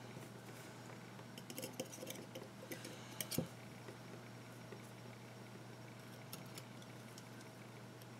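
Faint light metallic clicks and scrapes of a thin steel pick against the stainless-steel deck, posts and coils of a rebuildable dripping atomizer while cotton wick is tucked in. They come in a cluster in the first half, the sharpest a little under halfway, over a steady low hum.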